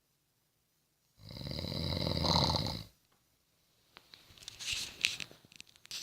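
Snoring: after a quiet pause, one loud, rattling snore starts about a second in and lasts under two seconds. From about four seconds in comes a quieter, breathy breath with small clicks and whistles.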